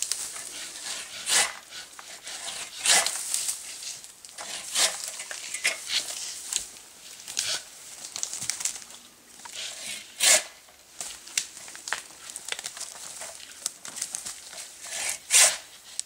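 Samurai pole pruning saw cutting a pine branch: rasping strokes of the blade through the wood on each pull, uneven and a second or two apart.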